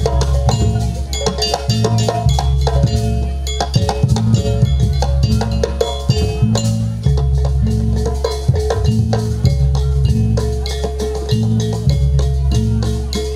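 Loud jaranan accompaniment music with rapid drum and struck percussion strokes over a steady pitched line and a low bass that changes note every second or two.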